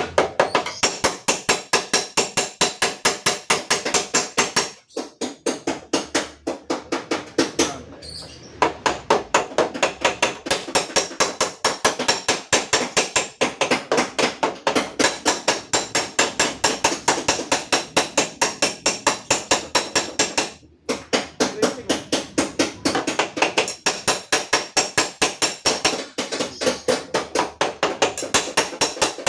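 Rapid, steady hammering on the steel sheet metal of a car's rear door panel, several blows a second, as a dent is beaten back out; the blows stop briefly twice.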